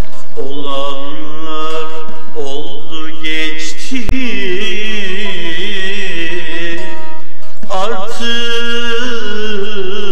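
Middle Eastern-style song with long, held, wavering notes sung over a plucked-string accompaniment, with a very brief dropout about four seconds in.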